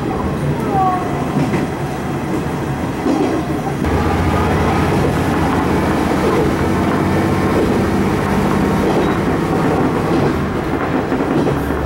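Diesel railcar running, heard from inside behind the cab, with wheels clicking over rail joints. About four seconds in the engine drone steps up and gets louder and steadier as power is applied.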